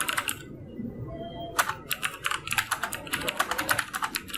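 Fast typing on a TVS Gold mechanical keyboard with clicky Cherry MX Blue switches: a short burst of key clicks, a pause of about a second, then rapid, continuous clicking.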